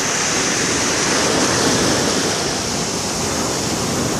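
Atlantic Ocean surf: a steady rush of breaking and washing waves.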